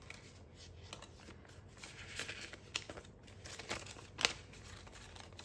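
Australian polymer banknotes being handled and counted by hand: soft crinkling and flicking of the plastic notes, with a few sharper clicks, the loudest about four seconds in.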